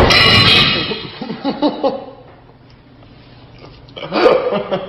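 Loud, wordless bursts of a person's voice: one at the start lasting about a second, trailing into short broken sounds, then another short loud burst about four seconds in.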